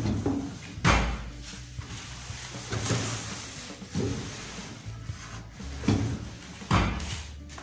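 A plywood fence block is slid and knocked into place along the edge of a wooden saw table, making wooden scraping and several sharp wooden knocks.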